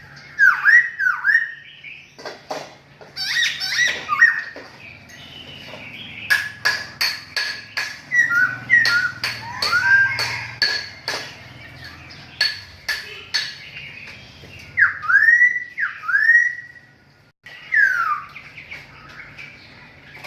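Caged songbirds in a bird shop chirping and calling. Many short whistled notes swoop down and back up, overlapping with runs of sharp clicking chips through the middle.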